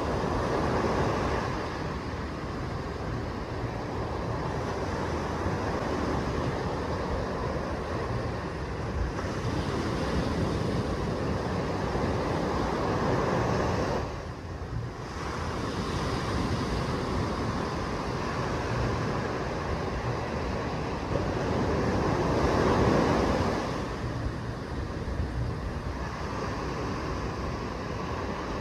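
Small waves breaking and washing up a sandy beach, the surf swelling and easing over a steady low rumble, with its loudest wash near the end and a brief quieter moment about halfway through.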